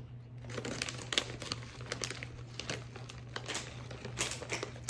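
Crinkly foil wrapper of an individually packaged Kit Kat being handled and opened by hand, a run of irregular crackles that starts about half a second in.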